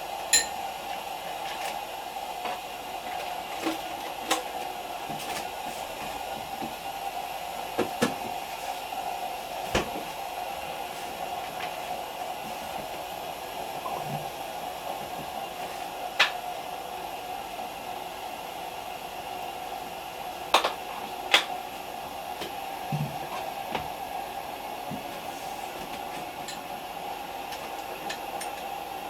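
A steady fan-like mechanical hum with a faint hiss, broken by a handful of short, light clicks and knocks scattered a few seconds apart.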